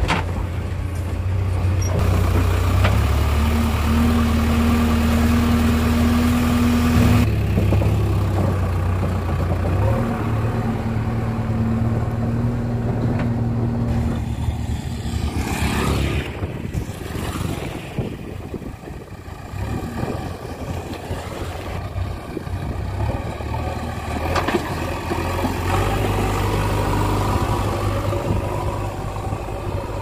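JCB 3DX backhoe loader's diesel engine running steadily as the machine drives, with a steady higher hum over the engine in two stretches of the first half. The first half is heard from inside the cab.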